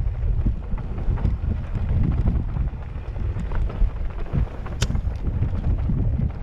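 Wind buffeting a helmet-mounted camera's microphone on a fast mountain bike descent, over tyres rolling on dirt and rock with scattered clicks and rattles from the bike. One sharp click comes a little under five seconds in.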